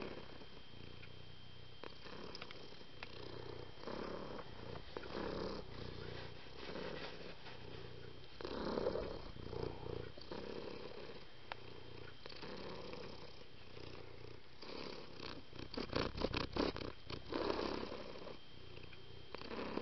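Domestic cat purring close to the microphone, in swells that rise and fall about once a second. It grows louder and more rattling for a couple of seconds near the end.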